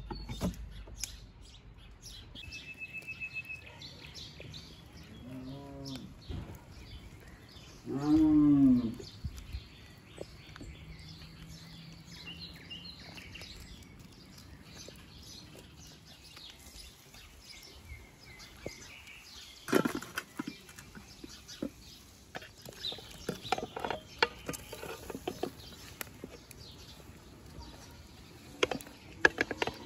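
A cow mooing twice, each moo rising then falling in pitch, the second louder and about a second long. Small birds chirp faintly, and a sharp knock comes about two-thirds of the way through.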